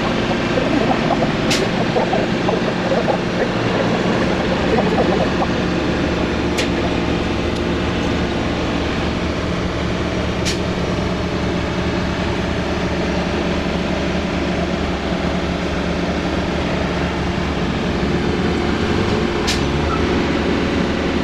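Heavy rotator tow truck's diesel engine running steadily while its boom holds a load, with a few faint sharp ticks.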